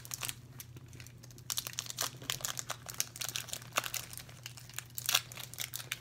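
Kit Kat wrapper crinkling and tearing as it is pulled open by hand: a few scattered crackles at first, then a dense run of crackles from about a second and a half in.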